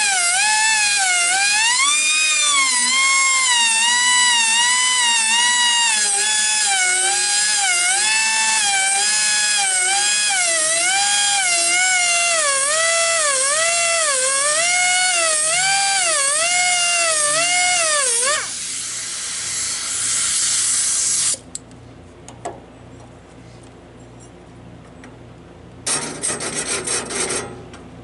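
A small hand-held rotary grinder with a fine grinding stone whines at high speed against the teeth of a Wood-Mizer LT15 sawmill's bandsaw blade. Its pitch dips and rises about once a second as the stone works each tooth, and the grinder stops about two-thirds of the way through. Near the end, a hand file rasps across a tooth in short strokes.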